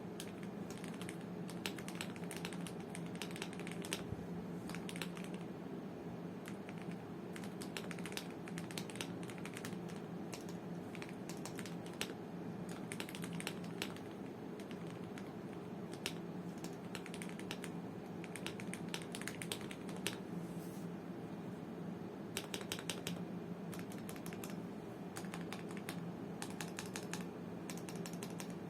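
Typing on a Gamakay/Womier K87 mechanical keyboard with lubed Gateron Yellow linear switches, lubed and band-aid-modded stabilizers and XDA-profile keycaps: quick keystrokes in runs with short pauses, over a steady low hum.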